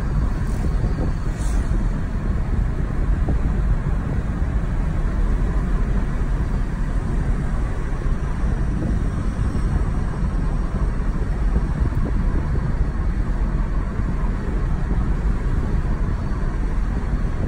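Steady in-cabin noise of a Mazda car driving at cruising speed: an even rumble of tyres on the road with the engine running.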